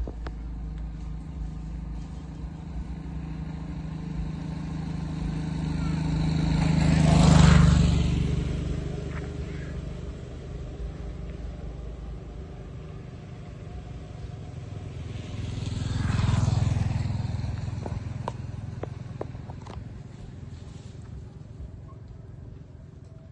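Two motor vehicles passing by one after the other, each engine rising and fading: the first about seven seconds in and the louder of the two, the second about sixteen seconds in. A steady low hum runs underneath.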